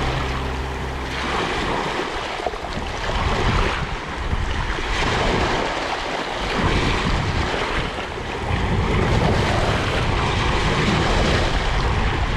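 Sea waves washing in, a steady rushing noise that swells and eases every couple of seconds.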